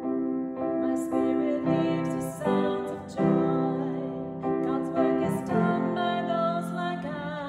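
A woman singing a worship song while accompanying herself on an upright piano, with chords struck every second or so and held notes sung with vibrato.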